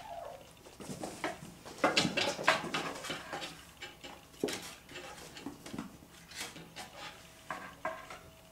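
A Ragdoll kitten at play: an irregular run of clattering taps and scratches, busiest about two seconds in.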